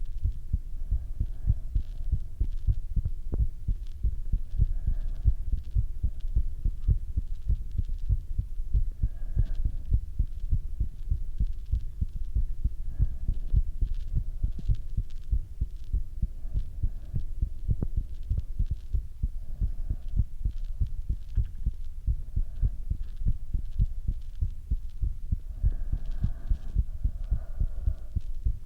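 A person's heartbeat, a continuous run of low thuds, with softer breath sounds from the lungs swelling up every few seconds and more strongly near the end.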